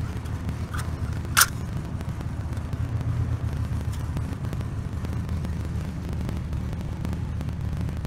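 Steady low wind rumble on the microphone, with one sharp metallic click about a second and a half in, and a fainter one just before it, as a folding knife's blade cuts a thin aluminium drink can.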